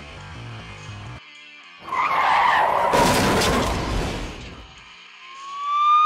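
Background music stops, then car tyres screech and a crash of impacts follows as a comedy sound effect. A siren starts to wail upward near the end.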